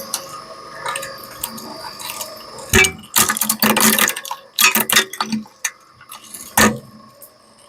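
Industrial shredder breaking up a hair dryer's plastic and metal parts: irregular sharp cracks and crunches over a faint steady hum. The loudest cluster comes about three to four seconds in, with a last loud crack near the end.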